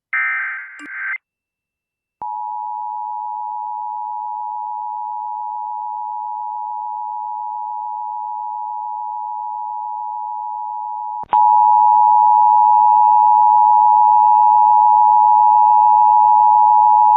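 Emergency Alert System broadcast tones. It opens with the end of a warbling SAME digital header burst. From about two seconds in, a single steady alert tone runs for about nine seconds. About eleven seconds in, a louder, steady EAS attention tone starts over a background hiss.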